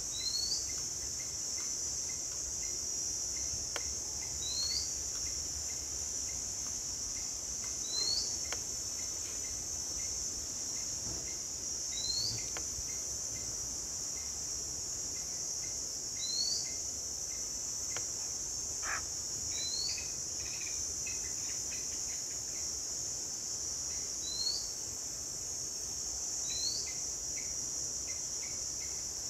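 Steady high-pitched insect chorus, with a bird repeating a short upswept call about every four seconds.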